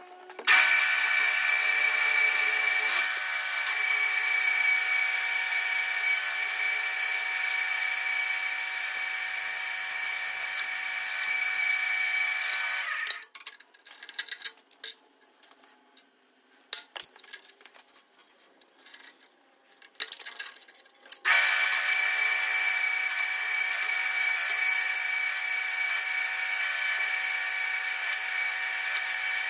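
Drill press running, drilling a 13/16-inch hole through a thick aluminum block with a steady, high-pitched whine. About 13 seconds in it stops abruptly, followed by several seconds of scattered knocks and clinks as the work is handled. About 21 seconds in the drill press starts again, drilling the second piece.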